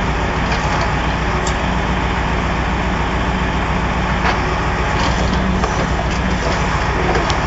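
Truck engine running steadily to power a hydraulic loader crane. There are a few sharp cracks as the crane's grab squeezes and lifts a crushed car body.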